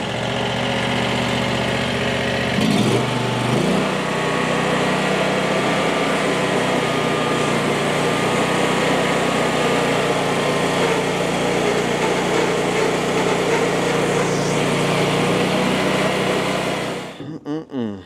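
Small gasoline engine of a Frontier OS35 portable band sawmill running, revving up to full speed about three seconds in while the band blade saws through a cedar log. The blade has been damaged by striking the backstop. The engine is shut off about a second before the end and the sound dies away.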